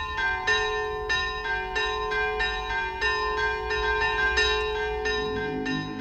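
Church bells ringing in a rapid run of strikes of varying pitch, about three a second, each note ringing on under the next. A low sustained tone comes in underneath about five seconds in.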